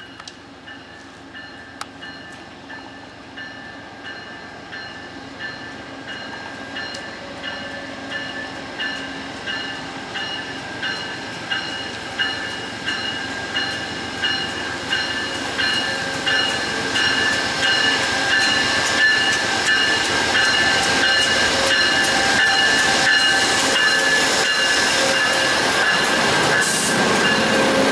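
VIA Rail passenger train approaching, growing steadily louder, its wheels clicking over rail joints in an even rhythm.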